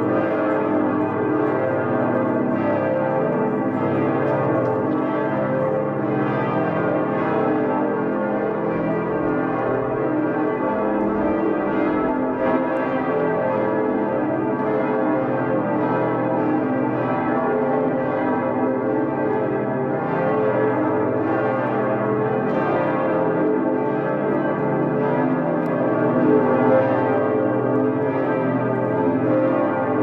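The big cathedral bells of Cologne Cathedral swinging and ringing together in a peal, strokes from several bells overlapping in a continuous, dense wash of deep, long-ringing tones.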